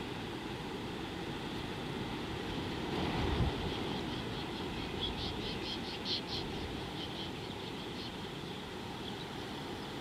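A bird out of sight calling a quick run of high chirps, about six a second, rising and fading from about four to eight seconds in, over a steady outdoor hiss. A low rumble swells briefly about three seconds in.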